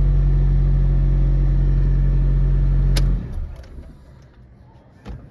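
Honda Fit's 1.3-litre L13 four-cylinder engine idling steadily, then switched off with a click about three seconds in; a few faint clicks follow.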